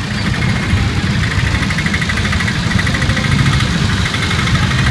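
Auto rickshaw's small engine running steadily with a fast, even pulse, heard from inside the rickshaw's passenger compartment.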